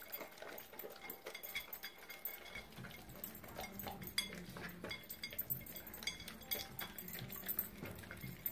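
Two dogs eating scrambled egg from dishes on the floor: quick licking and chewing, with many small clinks of the dishes as they are nosed and licked.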